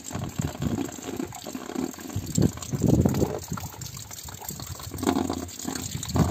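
Rainwater pouring in a thin stream from the end of a metal roof gutter and splashing into a plastic-lined barrel, coming and going in uneven surges.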